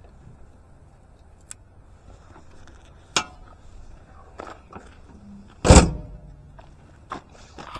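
Rear engine hood of a Bobcat E17 mini excavator being lowered and slammed shut: one loud bang a little under six seconds in, after a sharp click about three seconds in, with lighter knocks near the end as the hood is handled.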